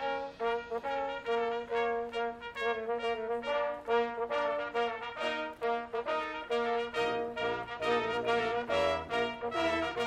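Marching band brass, with trombones prominent, playing a fast line of short detached notes over a steady held note.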